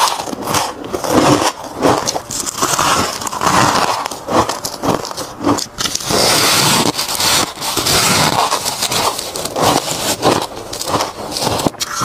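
Close-miked biting and crunching of mouthfuls of fluffy freezer frost: a dense, unbroken run of crisp crunches.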